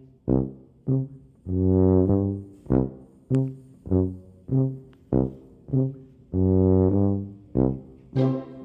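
Background music: a run of short, bouncy low notes at a steady beat, with two longer held notes in between, one near the start and one about two-thirds of the way in.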